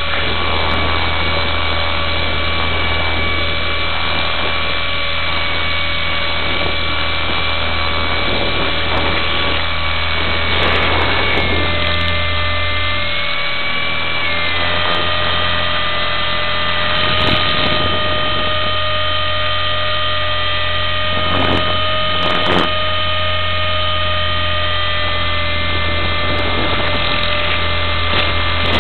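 Raptor RC helicopter in flight, heard from a camera mounted on the airframe: a loud, steady engine-and-rotor whine with a low buzzing rumble underneath. The pitch wavers and dips briefly about halfway through, then settles again.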